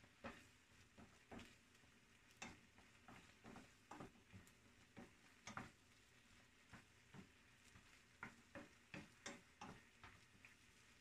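Wooden spatula stirring food in a nonstick frying pan: quiet, irregular knocks and scrapes of wood on the pan, a few a second, over a faint sizzle of frying.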